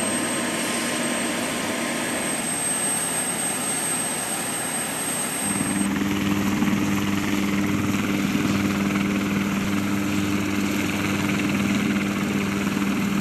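AH-1Z attack helicopter running on the ground, its turboshaft engines and rotor turning. A high, steady whine runs through the first half; about halfway in, the sound shifts to a lower, steady hum.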